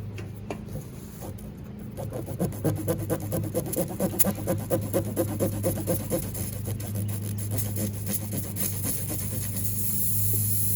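Tire-repair reamer worked in and out of a nail puncture in a car tire: a run of rubbing, rasping strokes, about three a second, cleaning out and roughening the hole to take a plug. A steady low hum runs underneath.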